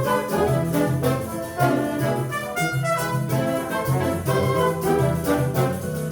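Wind band music led by brass, trumpets and trombones, over a walking bass line with a steady beat.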